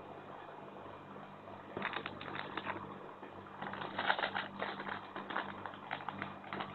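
Small plastic instant-noodle seasoning sachets crinkling and being torn open by hand, a crisp irregular crackle that starts about two seconds in and is busiest past the middle.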